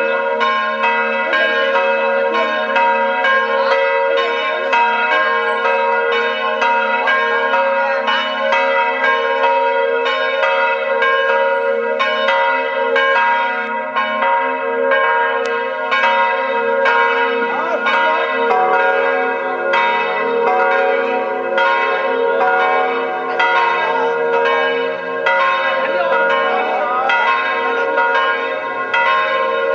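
A new set of church bells, 1550 kg in all, ringing the noon peal. Several bells are struck in a steady rhythm of a little under two strokes a second, and their tones overlap and ring on.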